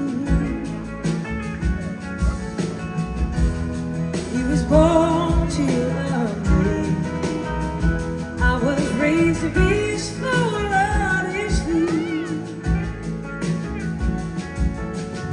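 Live band music: a lead vocal with wavering, gliding pitch over electric guitar, bass and drums in a slow blues-rock groove.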